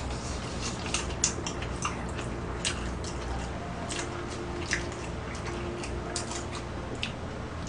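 Wet mouth sounds of people eating braised spicy monkfish: chewing and lip smacks as scattered short clicks throughout, over a steady low hum.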